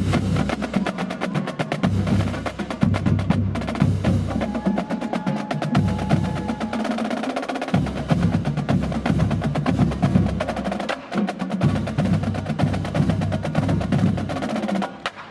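Marching band drumline playing: rapid snare-drum strokes and rim clicks over pounding bass drums, starting suddenly.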